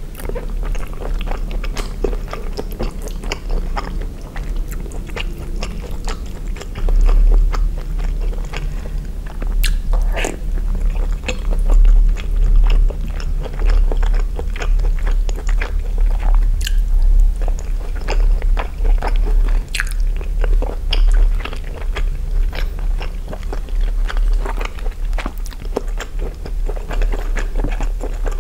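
Close-miked chewing and wet mouth sounds of a person eating spaghetti with sausages in tomato sauce: a continuous run of soft squelches and crackles, with a few sharper clicks.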